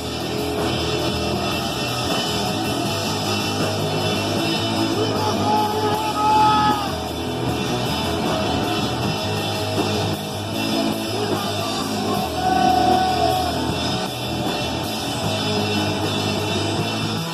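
Live rock band playing, with distorted electric guitar, drums and singing.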